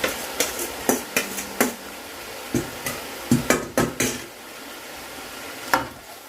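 A cooking utensil knocking and scraping against the pan while noodles are tossed and stir-fried, irregular sharp clacks over a steady sizzle; the clacks thin out after about four seconds, with one last knock near the end.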